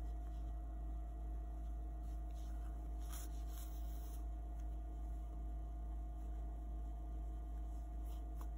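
Steady low electrical mains hum, with faint rustling of cotton yarn and crochet fabric being handled about three seconds in.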